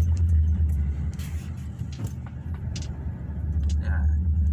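Steady low rumble of a car's engine and tyres heard from inside the cabin while driving; it eases for a couple of seconds midway, then comes back up.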